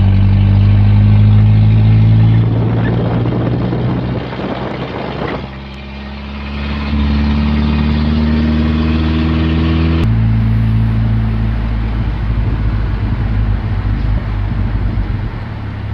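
Isuzu truck's engine and road noise heard from inside the cab while driving: a steady drone with a stretch of rushing noise about three to five seconds in, and an abrupt change in the engine note about ten seconds in.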